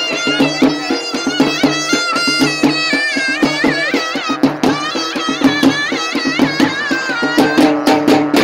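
Folk band playing for a ritual dance: a reed pipe with a brass bell plays a bending, ornamented melody over a steady low drone, with quick beats on hare frame drums.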